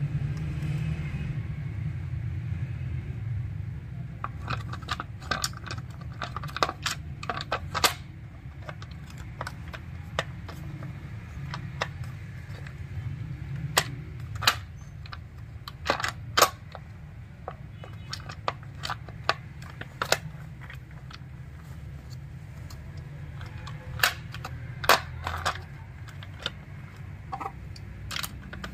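Chainsaw's plastic housing parts being handled and fitted back on: scattered sharp clicks and taps, some in quick clusters, over a steady low hum.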